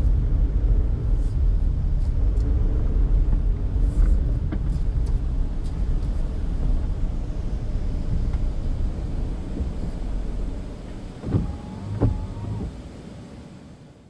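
Daihatsu Mira Tocot heard from inside the cabin: a steady low engine and road rumble while driving, with a few faint clicks early on and two short louder sounds near the end as it fades out.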